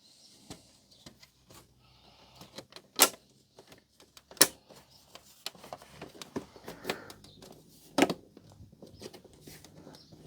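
Plastic parts of a Blu-ray player being handled and clipped together, with scattered small clicks and three sharp snaps: about three seconds in, a second and a half later, and about eight seconds in.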